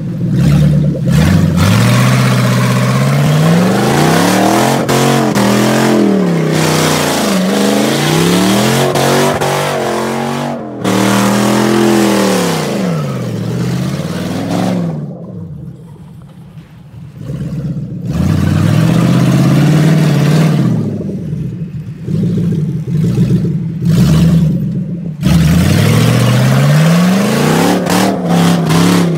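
Lexus 1UZ-FE 4.0-litre V8 in a rear-wheel-drive Mitsubishi Pajero, revved hard again and again while the vehicle spins donuts on dirt, its pitch climbing and falling with each burst. It drops quieter for a few seconds about halfway through, then is loud again.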